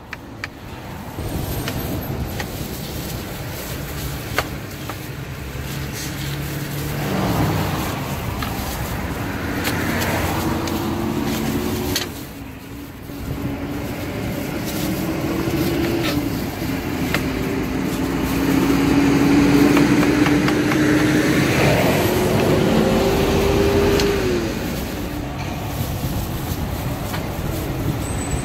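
Road traffic going by: vehicle engines passing over a steady background rumble, their pitch slowly rising and falling, loudest in the middle and latter part.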